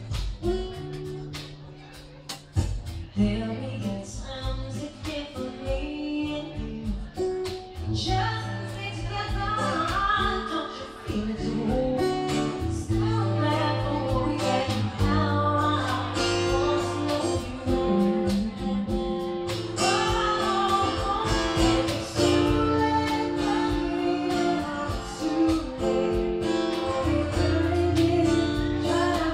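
Live acoustic band playing: acoustic guitar and a cajon keeping a steady beat, with a woman singing that comes in about eight seconds in.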